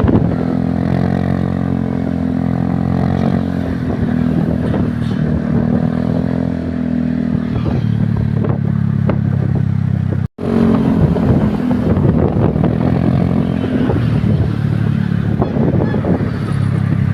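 Heavy vehicle engines running in a passing convoy, a steady low drone. The sound cuts out for an instant about ten seconds in.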